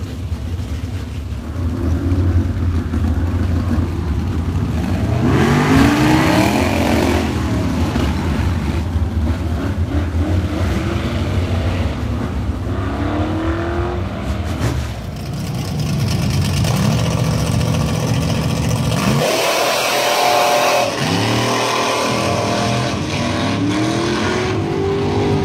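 Drag car's Ford 427 V8 through open headers, revving and accelerating hard down the strip, its pitch sweeping upward several times.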